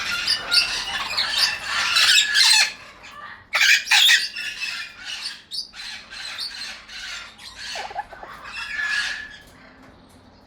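Young Amazon parrots squawking in harsh, raspy calls, loudest over the first four seconds, then in shorter, weaker calls that die away near the end.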